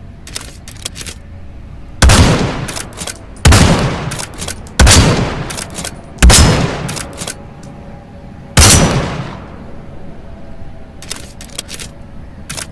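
Five .308 rifle shots, each a sharp crack followed by a rolling echo of about a second, spaced roughly one to two seconds apart. A few faint clicks come before the first shot and again near the end.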